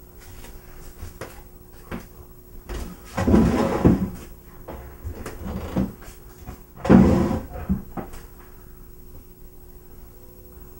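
Kitchen cupboard doors knocking and rattling: two loud bumps, about three and seven seconds in, with lighter clicks between them, over a faint steady hum.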